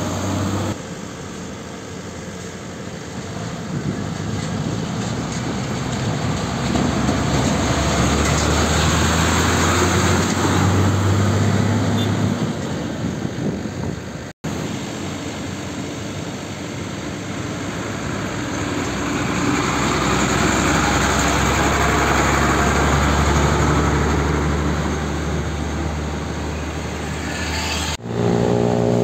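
Heavy diesel container trucks driving past on a road, Nissan Diesel tractor units among them, over other traffic. The engine and tyre noise swells as each truck draws near. The sound cuts off abruptly twice where one clip gives way to the next.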